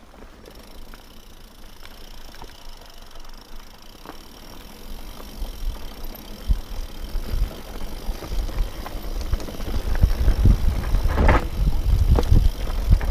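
Mountain bike rolling fast over loose, rocky dirt singletrack: tyres crunching and the bike rattling over a low rumble that grows louder as speed builds. There are sharp knocks as the wheels hit rocks, the biggest about eleven seconds in.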